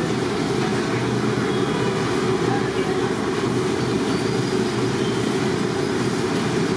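A steady, unbroken low roar, even in level throughout, with faint voices in the background.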